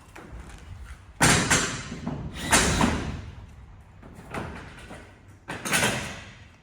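Polycarbonate greenhouse sheet being pushed and slid against the greenhouse frame: four loud scraping, rattling bursts, each starting suddenly and fading over about a second.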